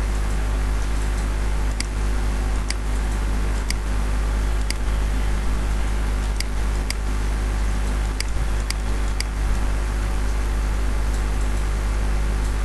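Computer mouse clicking about ten times, irregularly and often under a second apart, over a steady low hum and hiss like a computer fan or recording noise.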